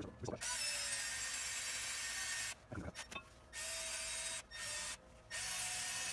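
Cordless Milwaukee M12 rotary tool spinning a wire wheel against a rusty cast caliper bracket, scrubbing it clean. It runs in several spells with short pauses between them: a steady motor whine under the scratching of the bristles on the metal.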